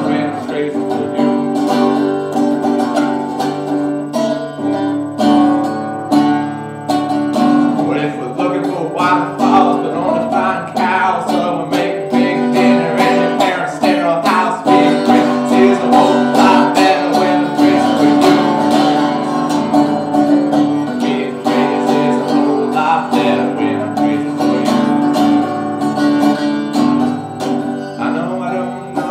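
Resonator guitar played in a steady rhythm, with a man singing along.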